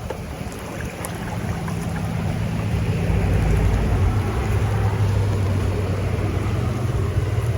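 Rolling thunder: a low rumble that builds over the first few seconds and lingers, over the hiss of rain.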